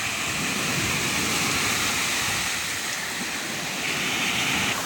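Waves breaking and washing up a sandy beach: a steady rushing hiss of surf.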